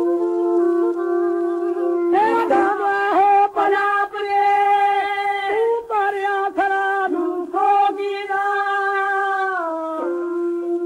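Punjabi devotional folk song played from an old 78 rpm record: a man sings long, wavering held notes from about two seconds in until near the end, over an accompanying instrument that keeps a steady drone and plays its melody alone at the start and end.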